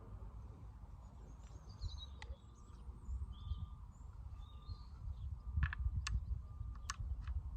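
Small birds chirping over a steady low rumble of wind, with a few sharp clicks in the last couple of seconds.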